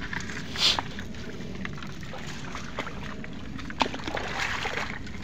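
Shallow water sloshing and splashing as someone moves through it, with a short splash about half a second in, a sharp knock near four seconds and a longer slosh just after.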